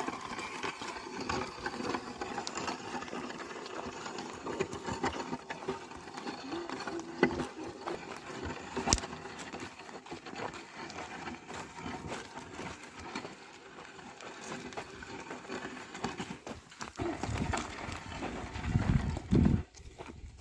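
Oxen at the plough: hooves stepping and the plough working through the soil, with a couple of sharp knocks. A loud low rumble comes near the end.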